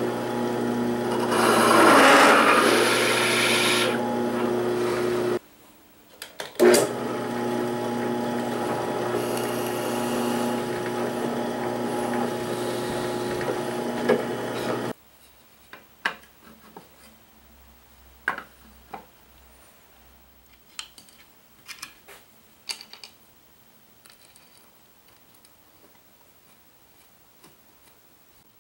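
Bench drill press motor running with a steady hum while a countersink and a twist bit cut into a router base plate; the cutting is loudest about two seconds in. The drill breaks off about five seconds in, starts again with a click and runs until about fifteen seconds in. After that come only scattered light clicks and taps of screws and parts being handled.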